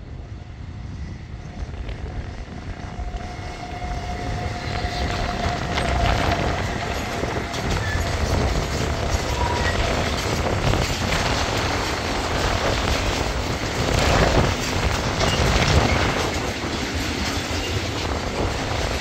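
Bombardier TRAXX class 186 electric locomotive approaching and passing with a freight train of tank wagons. The rumble grows louder over the first few seconds, then the wagons roll by steadily with wheels clattering over rail joints.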